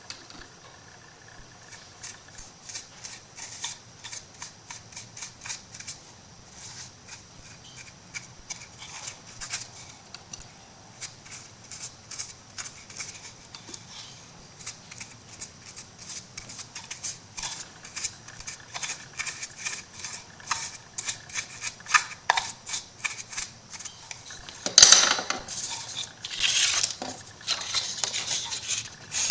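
Paper and craft tools being handled on a work table: a string of small clicks and taps, then louder rustling of paper a few seconds before the end.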